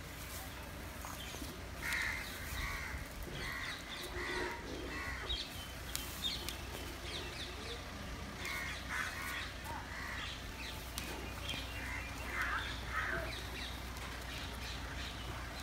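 Crows cawing over and over in two runs of short harsh calls, with small birds chirping faintly higher up.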